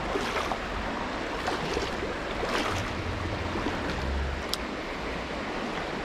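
Steady rush of flowing river water, with uneven low wind rumble on the microphone and a single faint click about four and a half seconds in.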